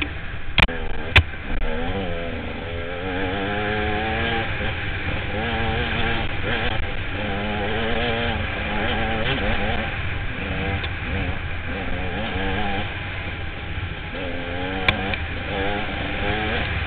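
Enduro motorcycle engine running hard, its pitch rising and falling again and again as the throttle is worked, over a steady low rumble. A few sharp knocks come about half a second and a second in, and another near the end.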